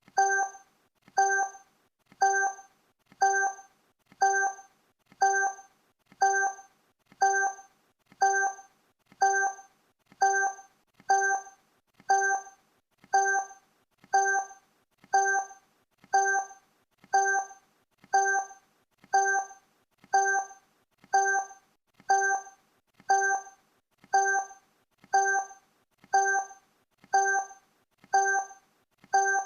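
Countdown timer sound effect: a short pitched blip once a second, each fading away quickly, repeating evenly.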